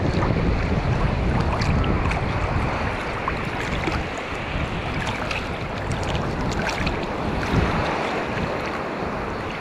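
Wind rumbling on the microphone over sea surf washing ashore, the rumble heaviest in the first few seconds.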